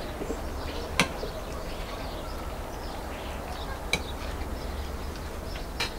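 A steady low background rumble with two sharp clicks, one about a second in and one near four seconds.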